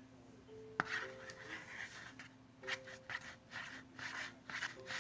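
A spoon stirring and scraping slime in a bowl, in repeated short strokes, with a sharp click about a second in.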